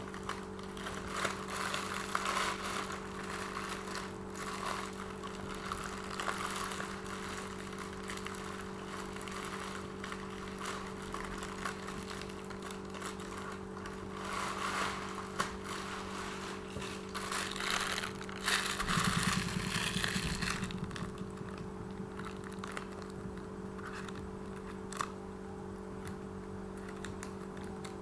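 Irregular scratching and rustling, as of paper or craft materials being handled, over a steady low hum, with a louder low rumble about two-thirds of the way through.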